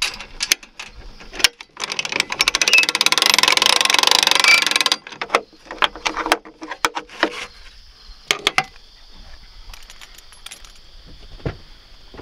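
Boat trailer hand winch: a run of rapid ratchet clicking for about three seconds as the drum turns, with separate metallic clicks and clinks of the strap hook and shackle before and after.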